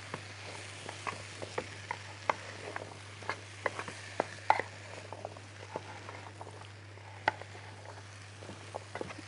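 Wooden spoon stirring diced vegetables in a dark baking tray as they are sautéed in butter: light, irregular clicks and scrapes of the spoon against the tray, with a steady low hum underneath.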